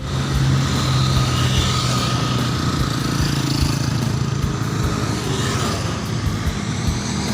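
A bus engine running close by amid road traffic noise, its low drone strongest for the first few seconds and then fading into the general rumble.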